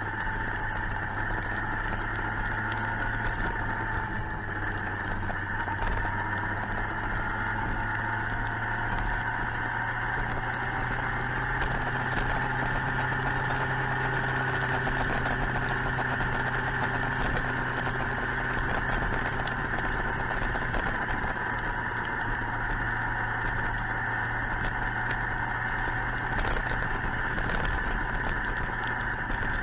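Suzuki GSX-R 1000 inline-four motorcycle engine running steadily at low revs, its pitch hardly changing throughout.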